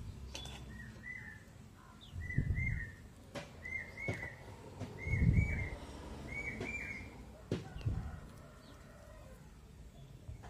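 A bird repeats a short doubled chirp about every second and a half, five times, stopping about seven seconds in. Under it are low thuds and a few clicks, the loudest sounds, likely from hands handling close to the microphone.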